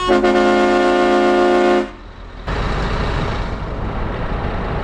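Truck horn sounding one long blast of just under two seconds. It is followed by the steady rumble of the truck's engine and road noise as it pulls away.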